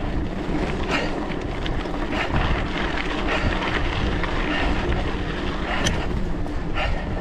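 Wind rushing over a GoPro action camera's microphone on a moving bicycle, with tyres running on a gravel forest road and scattered clicks and rattles from the bike.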